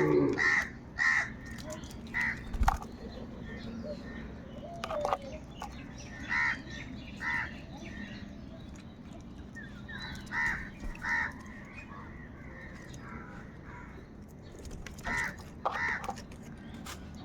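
Crows cawing, short calls scattered through, often two in quick succession. A single thump about three seconds in.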